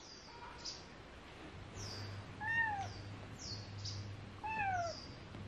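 Young tabby kitten meowing twice, two short, soft, thin mews about two seconds apart, each dropping in pitch at the end.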